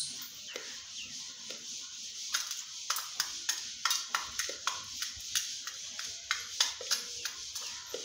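Indian peacock pecking into a small metal tin: its beak clicks and clinks against the metal, irregularly about two to three times a second from about two seconds in, some taps with a brief metallic ring.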